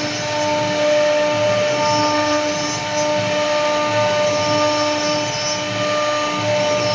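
CNC wood router carving wood: the spindle whines steadily while the bit cuts, and a lower cutting noise swells and fades every second or so as the head passes back and forth.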